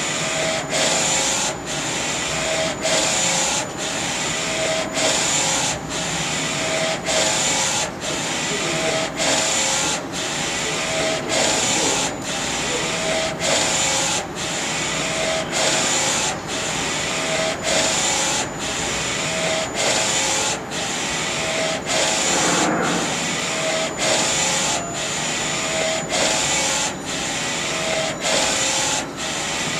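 Direct-to-garment T-shirt printer with an Epson DX5 print head printing: the carriage shuttles back and forth across the shirt in an even, repeating rhythm, with a thin high whine running steadily underneath.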